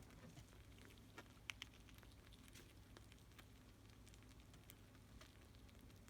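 Near silence with a few faint, scattered small clicks and patters of pet rodents handling and nibbling their food.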